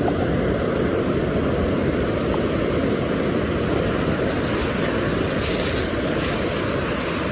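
Steady wind rumbling on the microphone, mixed with the wash of surf, with a little brief hiss higher up about two-thirds of the way through.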